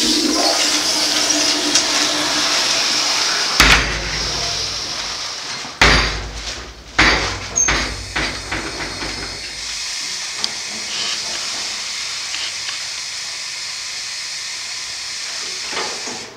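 Steady rushing hiss of water in a tiled restroom, easing off about ten seconds in, with four sharp bangs between about four and eight seconds in.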